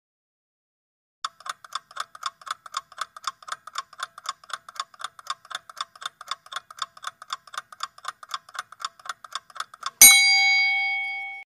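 Clock-ticking countdown sound effect, roughly four to five ticks a second, cut off about ten seconds in by a single loud bell ding that rings out and fades. The ding signals that the quiz timer has run out.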